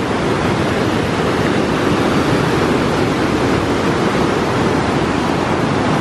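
Waterfall cascading over a wide rock ledge: a loud, steady rush of water.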